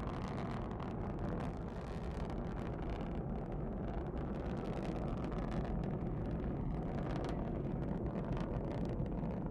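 Soyuz 2.1a rocket's first stage, four strap-on boosters and the core stage, firing in ascent: a steady, deep rumble with most of its weight low down.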